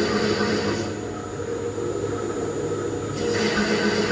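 RMT TGB14 CNC pipe threading machine running, its rotating tool head turning at the end of a ductile iron pipe: a steady machine hum with a hiss over it. The hiss drops away for about two seconds in the middle, then returns.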